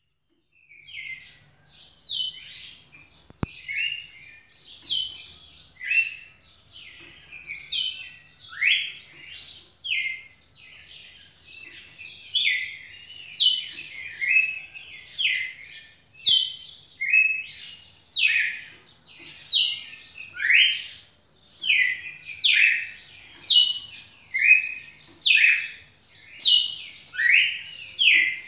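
Red-cowled cardinal (galo-de-campina) singing continuously: short, clear whistled phrases of quickly falling and rising notes, repeated about once a second.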